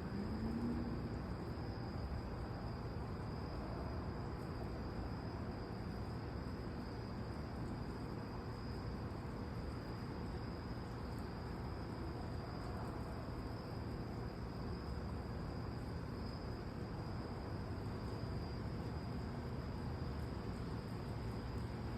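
Steady night chorus of crickets, a thin continuous high trill, over a low steady background rumble.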